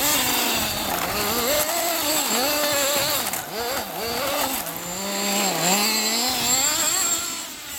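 Nitro-powered radio-controlled car engine revving on and off the throttle as the car drives, its pitch rising and falling every second or so, held steady briefly around the middle.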